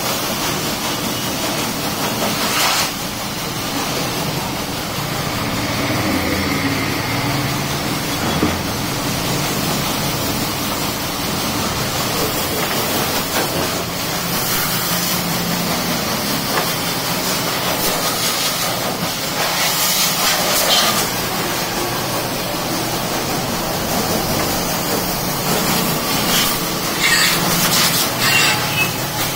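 Pressure washer spraying a motorcycle, its water jet giving a steady loud hiss with the washer's motor humming underneath.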